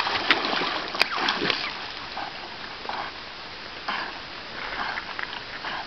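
Water splashing and churning as a Newfoundland dog swims close by. There are two sharp clicks in the first second, and the splashing is louder for the first couple of seconds, then eases.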